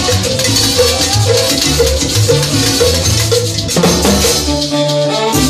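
Salsa music with Latin percussion, timbales among it, over a repeating bass line; the bass drops out near the end.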